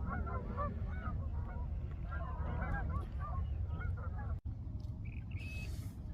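A flock of geese honking, many short calls overlapping, which die away about four seconds in.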